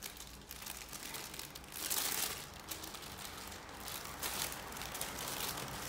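Clear plastic bag crinkling and rustling as hands handle it and the small packets of diamond painting drills inside, loudest about two seconds in.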